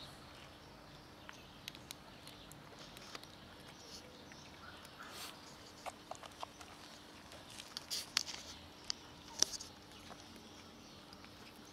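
Cat and kitten eating: scattered small crunches, clicks and smacks of chewing dry kibble and wet cat food, busier in the second half.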